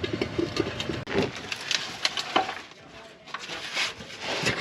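Metal parts and hand tools knocking and clinking in a series of short, irregular impacts as the bell housing is worked off the NV4500 transmission.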